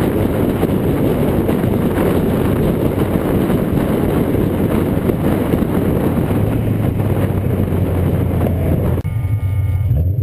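Wind rushing over a low, car-mounted camera at speed, with road noise and engine drone underneath. About nine seconds in it cuts suddenly to a quieter, steady engine sound from just behind a BMW M5's V8 exhaust.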